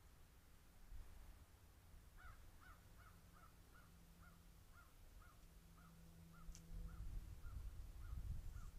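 A faint animal call repeated about fourteen times at an even pace, roughly two a second and slowing slightly, starting about two seconds in and stopping near the end.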